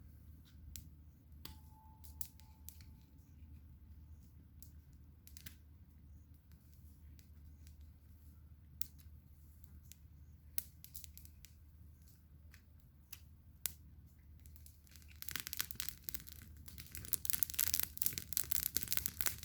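Campfire crackling: scattered sharp pops and snaps over a steady low rumble, turning into dense, louder crackling about fifteen seconds in.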